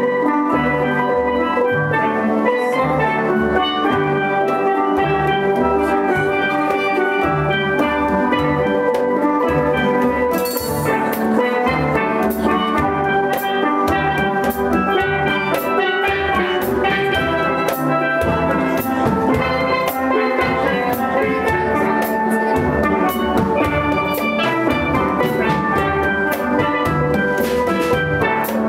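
Steelband playing: many steel pans struck with mallets in quick melody and chord patterns over rhythmic bass pan notes, with percussion strokes keeping a steady beat.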